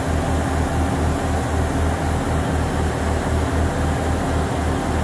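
Class 158 diesel multiple unit 158716 idling at a standstill: a steady diesel engine throb that pulses about five times a second.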